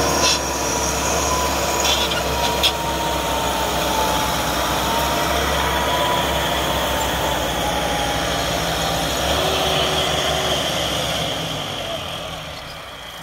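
Diesel farm tractors running under heavy load as a trolley piled high with sugarcane is hauled across the field, with a steady high squeal that wavers a little in pitch. A few sharp knocks sound in the first three seconds, and the engine sound fades near the end as the tractor pulls away.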